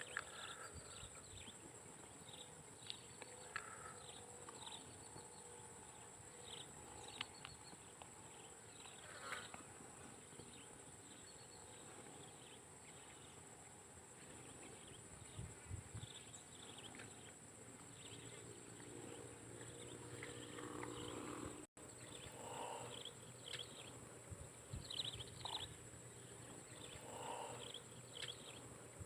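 Faint swamp-forest ambience: a steady, high-pitched insect drone, with many short chirping animal calls scattered over it.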